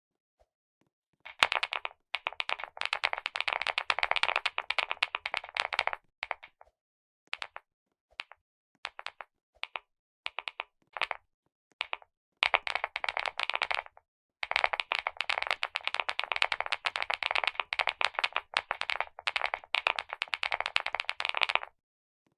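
Clicky mechanical keyboard keys being pressed rapidly, giving long runs of dense, fast clicking. A stretch of scattered single clicks falls in the middle, and the clicking stops about a second before the end.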